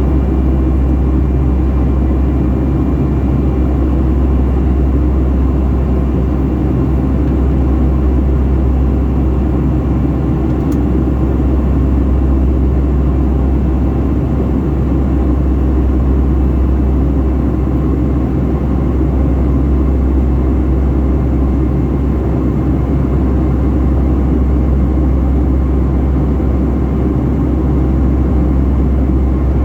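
Cabin noise of a Boeing 757-300 heard from a window seat: the jet engines and airflow make a steady low drone that does not change.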